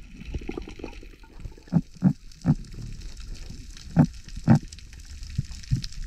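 Underwater audio through a camera housing: a steady hiss with a series of short, low grunt-like knocks at irregular intervals, about one or two a second.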